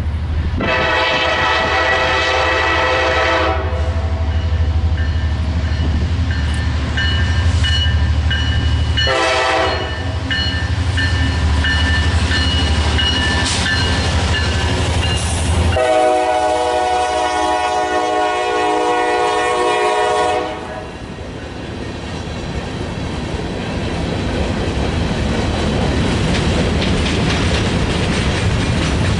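Freight locomotive's multi-note air horn sounding a long blast, a short one, then a long blast of about four seconds, over the heavy low rumble of the diesel passing close by. After the last blast the rumble drops away and the freight cars roll past with a steady clickety-clack.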